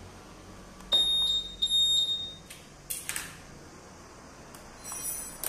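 Two short, high-pitched electronic beeps about a second in from a Honda Vario 150's keyless (smart-key) system buzzer, followed by a brief click.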